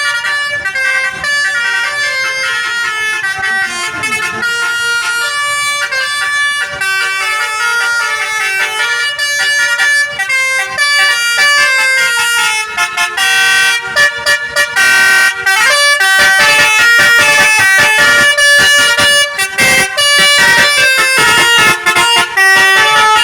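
Basuri musical air horn on a tour bus playing a tune: a run of loud horn notes stepping up and down in pitch, some short and some held. It gets louder about halfway through.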